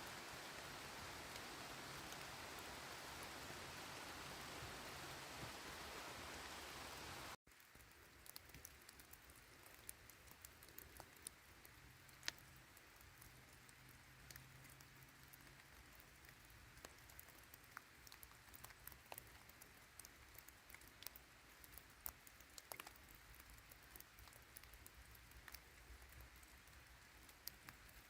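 Rain falling: a steady even hiss that cuts off suddenly about seven seconds in, followed by quieter light rain with many scattered drops tapping close by.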